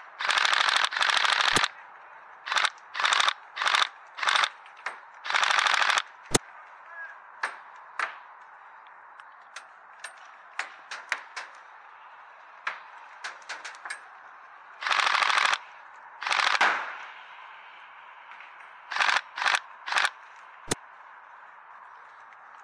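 Airsoft rifle firing rapid full-auto bursts, some short and some over a second long, with a couple of single sharp shots and fainter scattered pops in the gaps.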